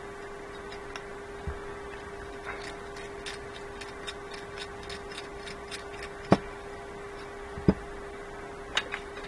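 Light metallic clicks and ticks from handling and taking apart a hand socket ratchet, with a few sharper knocks in the second half, over a steady hum.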